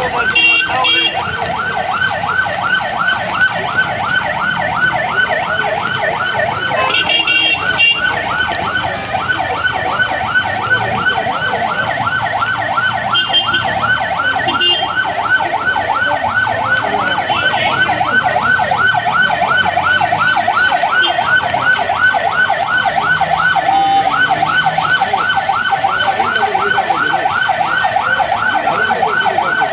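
A siren sounding without a break in a fast, evenly repeating warble.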